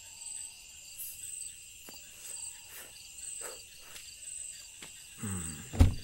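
Crickets chirping steadily in a high, pulsing chorus, with a few faint soft knocks. Near the end comes a single loud thump.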